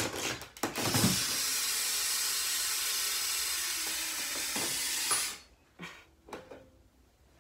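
A steady sizzling hiss like food frying, made as part of pretend cooking at a toy kitchen. It lasts about four seconds and cuts off suddenly, after a few light clicks of plastic toys being handled.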